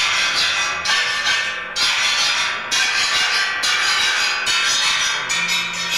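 Metal sound sculpture played with a steady series of rasping strokes, about one a second, each a harsh scrape with ringing metallic overtones. Near the end the strokes come quicker, and a low steady hum joins in.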